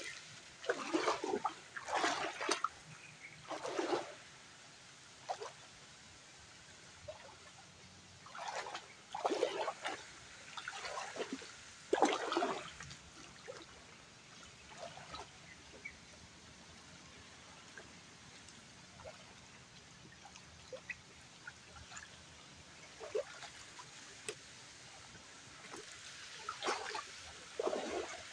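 Water splashing and sloshing in a shallow stream as a person wades and scoops with a hand net, in irregular bursts with quieter gaps between.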